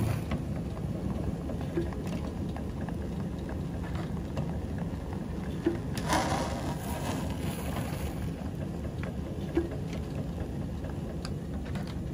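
A small rubber-tyred swivel caster wheel rolling and swivelling across a flat surface under a hand, a steady low rumble with a few sharp clicks and a brief scrape about six seconds in as the caster tips.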